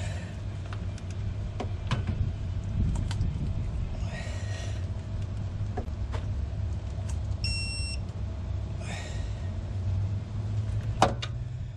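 Metal hand tools clicking and knocking as a socket and extension are worked on the crank pulley bolt, over a steady low rumble. A short electronic beep sounds a little past halfway, and a sharp click comes near the end.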